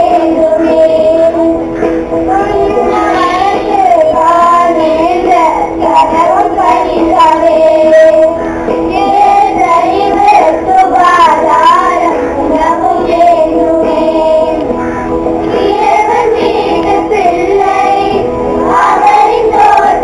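A song sung by children's voices over steady instrumental accompaniment, carrying on without a break.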